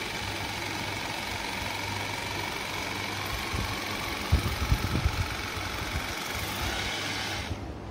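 Agaro portable oral irrigator's small pump motor running with a steady high whine while its water jet is used in the mouth. There are a few low thumps about halfway through, and the unit switches off near the end.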